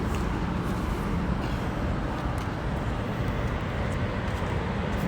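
Steady outdoor street ambience: a low, even rumble of road traffic.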